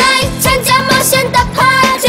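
Upbeat Mandarin pop theme song of a children's cartoon, with a steady drum beat about three hits a second.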